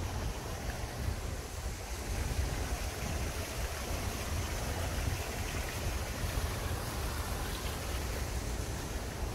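Steady rushing of water from a garden pond's small fountain, over a constant low rumble.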